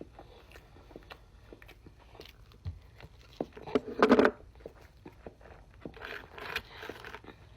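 Close-up mukbang eating sounds: biting and chewing food, made up of many small wet clicks, with a louder crunchy burst about four seconds in and more chewing noise near the end.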